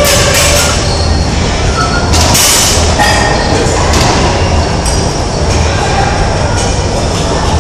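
Steady loud rumble of a large gym hall's background noise, with faint distant voices.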